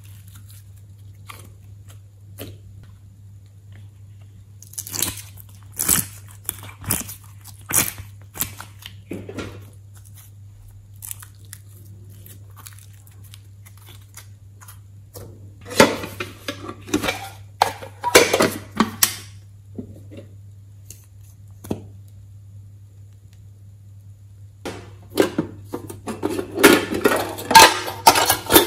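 Hands squeezing, stretching and folding glossy slime, giving spells of small pops and crackling clicks about five and fifteen seconds in. Near the end a denser spell of clicks and knocks comes as a tin box is handled. A steady low hum runs underneath.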